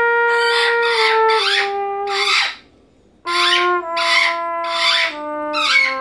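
Trumpet played solo, holding long notes, then a short pause about two and a half seconds in before a phrase that steps down in pitch note by note.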